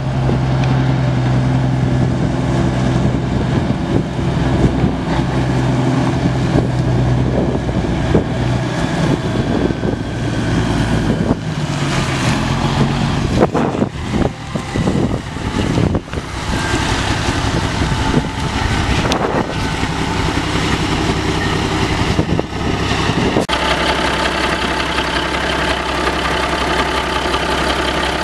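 Caterpillar 3406B inline-six diesel engine of a 1989 Freightliner FLD semi idling steadily, with a few sharp knocks about halfway through. The engine's tone shifts at one point near the end.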